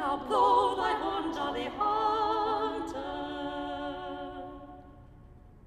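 Outro music: unaccompanied singing with a wavering vibrato, moving through a few notes and then ending on one long held note that fades away.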